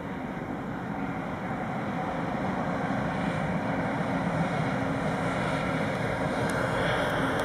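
A pair of DB class 189 electric locomotives running coupled as they approach and pass. There is a steady electrical hum with wheel-on-rail rumble, growing gradually louder.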